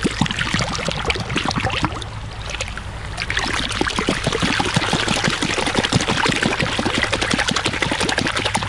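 River water splashing and trickling as a small pottery jar is washed by hand in the shallows, the splashing growing busier about three seconds in.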